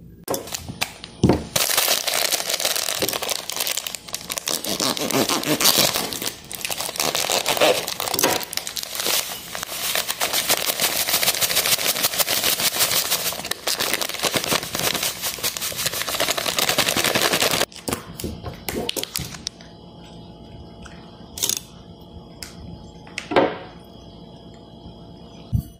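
Plastic bag of grated coconut crinkling and rustling as it is handled and poured into a glass bowl, a dense crackle lasting about sixteen seconds. After that it goes much quieter, with a couple of single knocks near the end.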